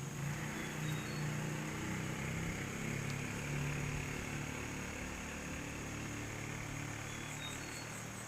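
A small engine running steadily with a low hum, most likely a river boat's motor, growing louder at the start and easing off a little near the end.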